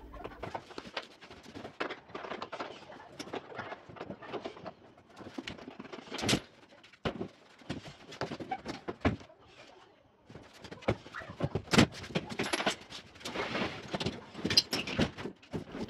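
Irregular knocks, bangs and clatter from a heavy bed being taken apart and moved, with quieter stretches between; the sharpest knocks come about six and twelve seconds in.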